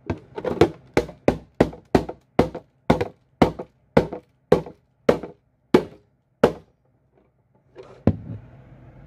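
Claw hammer striking a hard clear plastic anti-theft security box again and again, about fifteen sharp blows at two to three a second, slowing a little. Near the end come one more knock and a rustle as the box is handled.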